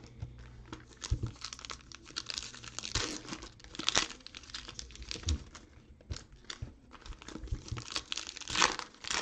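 Foil trading-card pack wrappers crinkling and being torn open by hand, in irregular crackles with a handful of louder ones.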